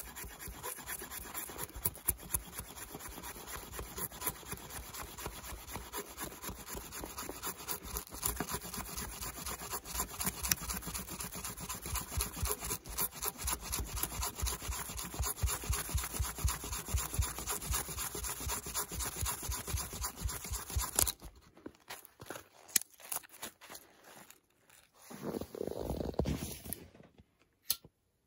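Axe blade shaving curls off a wooden stick on a stump in quick repeated scraping strokes, carving a feather stick for fire-starting tinder. The scraping stops about 21 s in, and a few scattered clicks and a short rustle follow.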